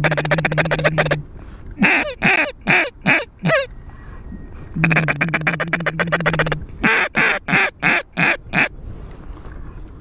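Mallard duck call blown by a hunter at circling ducks: a rapid run of feed chatter followed by a cadence of about six quacks, the pattern given twice.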